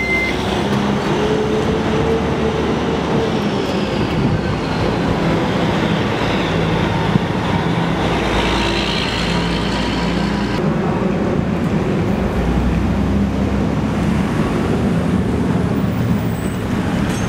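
Steady vehicle noise: a low rumble under a constant hiss, with a faint whine that slowly rises and falls.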